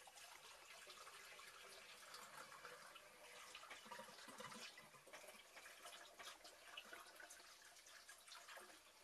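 Faint trickle and splash of a cooled blackcurrant cordial (Ribena) solution being poured into a container of apple juice.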